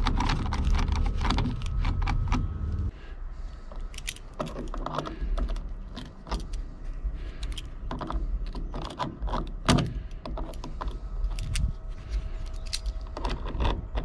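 Small metal clicks and rattles of locking pliers and a nut, washers and cam plate being handled and tightened on a fuel-door lock, with a low rumble under the first few seconds.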